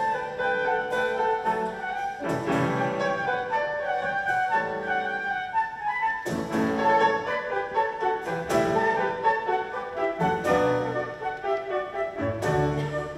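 Small live ensemble of piano, strings and flute playing an instrumental passage, with the flute carrying the melody over chords that change every couple of seconds.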